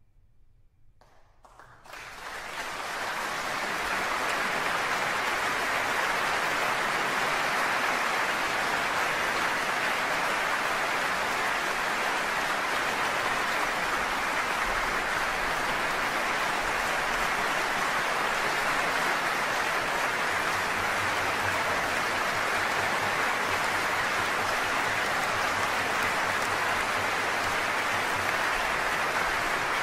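A short near-silent pause, then a large audience breaks into applause about two seconds in, swelling quickly to steady, dense clapping that continues.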